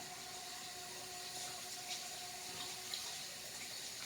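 Kitchen tap running steadily into a sink, an even hiss of water.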